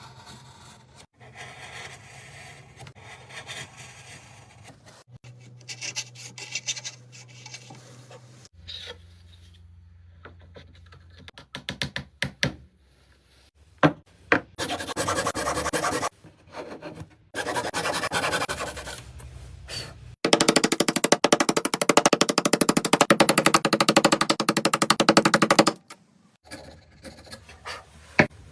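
Wood being cut and rasped by woodworking tools in a run of short clips: rapid, dense strokes that are loudest in a burst of about five seconds near the end, with a steady low hum in the first half.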